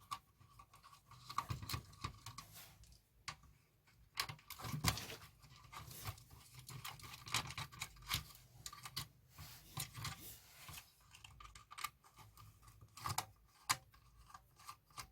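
Faint, irregular clicks, scrapes and rattles of a cassette tape recorder's casing and parts being handled and pulled apart by hand.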